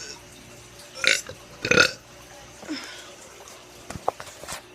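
A teenager burping: two short, loud burps close together about a second in, then a few fainter ones.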